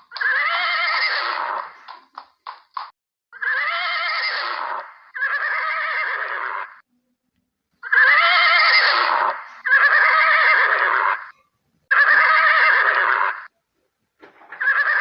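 Horse neighing: about seven long whinnies in a row with short gaps between them, with a few short sharp sounds about two seconds in.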